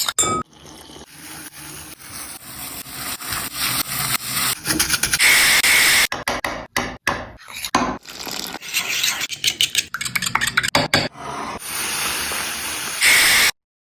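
Kitchen prep sounds in quick cuts: dry flour handled in a glass bowl, a dark bowl set down and handled on a wooden board with clinks and rubbing, and a stream of dry semolina pouring into a glass dish. The sound changes abruptly several times and stops suddenly near the end.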